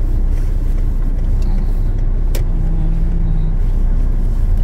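Peugeot 206 driving slowly on a wet road, heard from inside the cabin: a steady low engine and tyre rumble, with one sharp click about two and a half seconds in and a brief hum just after.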